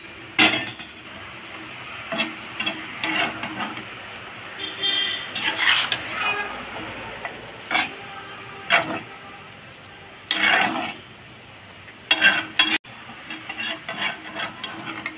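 Metal spatula stirring and scraping vermicelli and milk around a coated frying pan, in irregular strokes every second or two.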